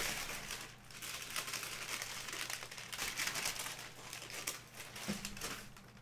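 Brown kraft packing paper and a black nylon drawstring bag crinkling and rustling as hands pull them apart to unwrap a basketball, the crackling most intense at the start.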